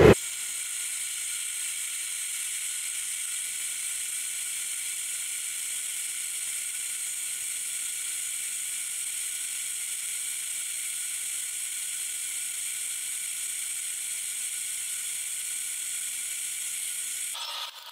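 Gas forge burner hissing steadily while the forge heats a steel bar, the hiss cutting off abruptly near the end.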